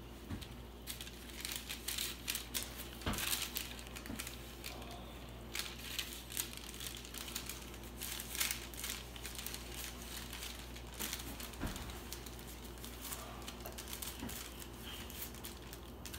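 Paper crinkling and rustling in irregular crackles as a ball of dough is pressed and folded inside it by hand.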